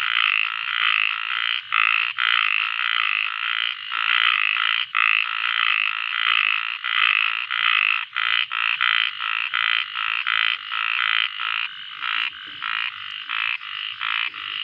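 Chorus of frogs calling continuously, a dense run of rapid, overlapping pulsed calls.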